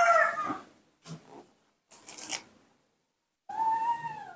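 Baby monkey calling: a high, whining call trails off in the first half second, then after a couple of faint rustles comes a steady, high-pitched coo just under a second long near the end.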